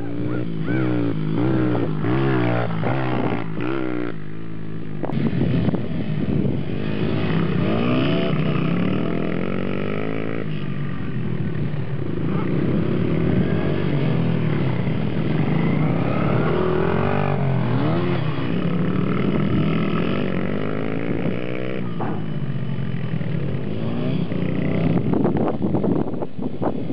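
Dirt bike engines running and revving, their pitch rising and falling again and again as the riders open and close the throttle, with more than one engine heard at once.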